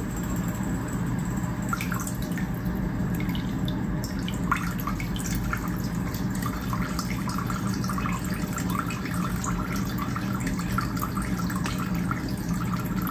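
Gasoline trickling from a hose into a plastic bucket of fuel, pumped through the fuel line by a 12-volt electric fuel pump that hums steadily underneath. The flow is slower than it should be: the line from the rusty tank is clogged.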